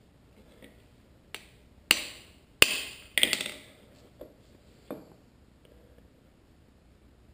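About six sharp metallic taps and clinks, each with a short ring, as brake caliper parts and a hand tool knock together; the loudest come in the middle.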